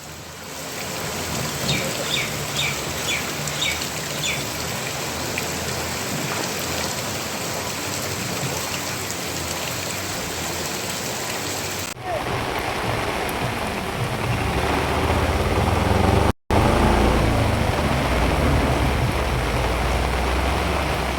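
Heavy monsoon rain pouring down, a steady hiss of water, with a quick run of short high chirps a couple of seconds in. The sound changes abruptly twice, and the later part carries a heavier, deeper rumbling wash.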